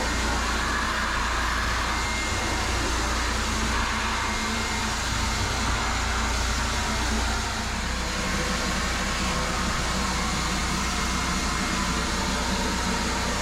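Hart 6-gallon stainless steel wet/dry shop vac running steadily while vacuuming, its sound shifting slightly about seven and a half seconds in.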